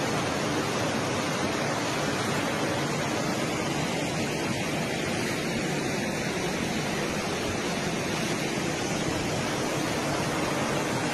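Floodwater rushing in a fast, muddy torrent: a steady, unbroken noise of churning water.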